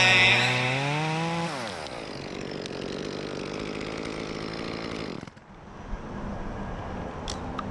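Small top-handle chainsaw (Echo CS-2511T) running at high revs, then dropping to a steady idle about a second and a half in. The engine note cuts out about five seconds in.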